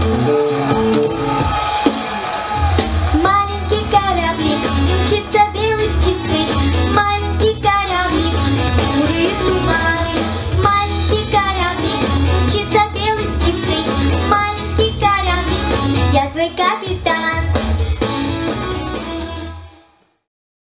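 A girl singing solo into a microphone over a backing track with a steady bass line; the music fades out near the end.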